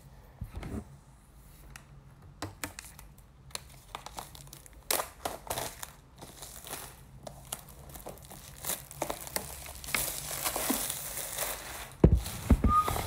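Crinkling and tearing of an iPad Pro box's seal wrap as it is pulled off by its pull tab while the box is handled. A few heavier knocks of the box come near the end.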